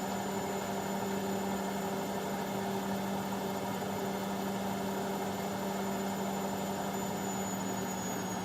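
Indesit washing machine on its spin cycle, the drum spinning at high speed on the way toward 1200 rpm: a steady motor hum with a thin, high whine above it.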